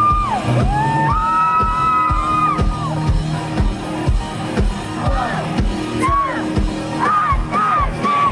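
Live band performance heard through a crowd: a steady kick-drum beat under long held high notes that slide in and out, then shorter high phrases near the end, with some audience whoops.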